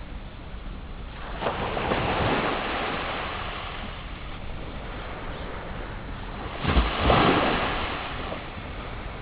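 Sea waves washing in, with a steady wash between them: one wave rises about a second and a half in, and a louder one breaks about seven seconds in.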